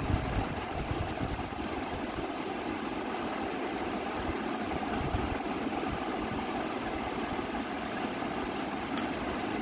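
A steady mechanical hum, with one sharp click near the end.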